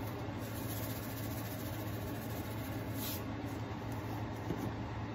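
A steady low hum over a faint hiss, with a single faint click about three seconds in.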